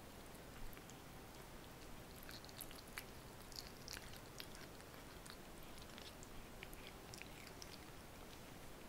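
Cat chewing raw lamb liver: faint, irregular small clicks and smacks of its mouth working the meat.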